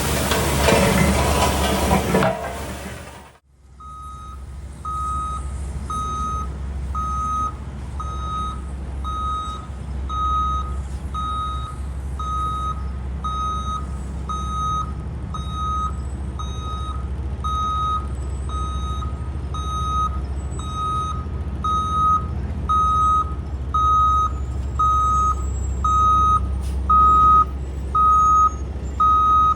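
Heavy construction vehicle backing up: its reversing alarm beeps steadily, a little more than once a second, over a low diesel engine rumble, and the beeps grow louder near the end. It is preceded by a loud hiss-like rush of noise that cuts off sharply about three seconds in.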